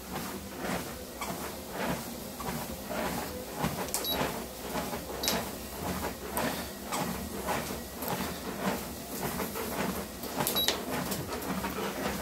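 BH Fitness treadmill running with steady footfalls on the belt, about two a second; its belt is freshly greased with liquid petroleum jelly. Short console beeps sound a few times as the speed keys are pressed and the belt speeds up.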